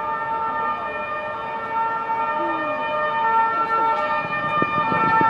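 Passenger train hauled by a PKP ET22 electric locomotive running into the station and braking, with a steady squeal made of several high tones held together. From about four seconds in, the wheels knock over the rail joints as it draws near.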